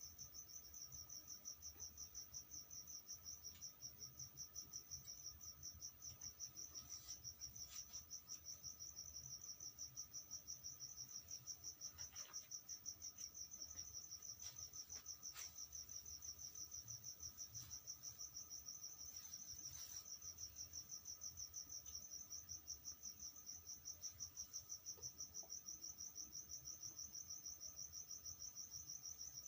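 Cricket chirping steadily in fast, even pulses, with a few faint clicks.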